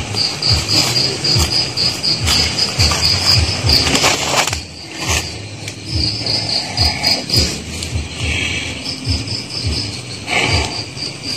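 A night insect chirping in an even, high-pitched pulse about three times a second, pausing briefly a couple of times. Underneath are irregular low thumps and a short rustle about four and a half seconds in.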